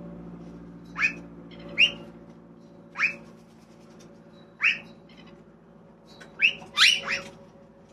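A bird gives seven short, sharp calls that rise in pitch, spaced out at first, then three in quick succession near the end. A steady low hum runs underneath.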